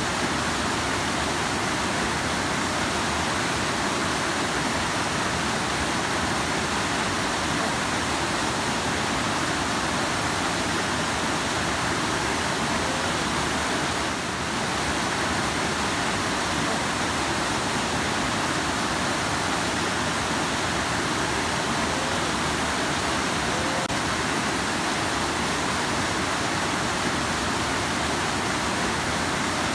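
Rushing river: water running hard with a steady, even noise.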